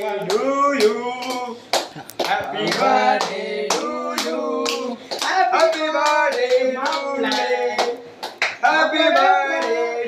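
Several young men singing together with hand claps cutting through the voices.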